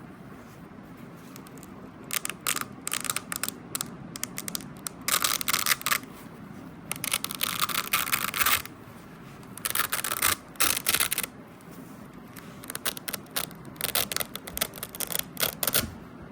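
Velcro hook-and-loop fastener on slippers being ripped apart in a series of crackling tears. The first comes about two seconds in; some are short and some last over a second.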